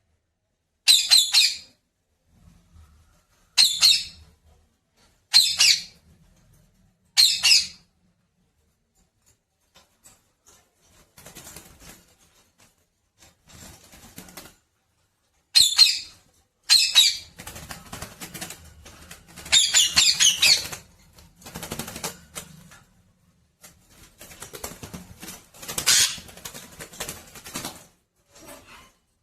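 Pet parrot: four loud, short bursts about two seconds apart, then after a gap a run of irregular bursts and scuffling noise that peaks a few times.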